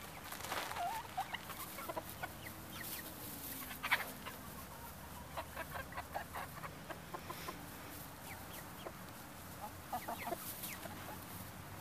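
Hens, silkies among them, clucking softly as they feed on soaked bread, with many short sharp clicks of beaks pecking at the pan.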